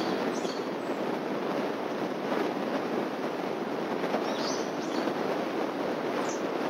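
Steady outdoor background noise with a few short, high bird chirps: one near the start, one about four and a half seconds in, and one near the end.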